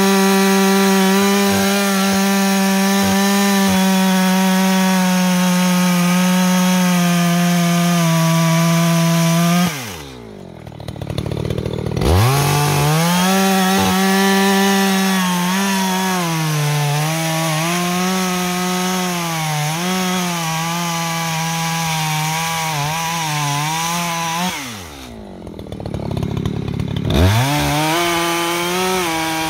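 Echo CS-620P two-stroke chainsaw running at high revs while cutting firewood. Its pitch wavers up and down under load. Twice the throttle is let off and the revs fall away to idle, then it revs back up about two seconds later.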